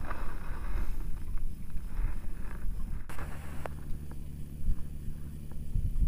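Wind on the microphone and low water noise around a small boat, with a few faint clicks; about three seconds in a steady low hum of a boat motor comes in and runs on.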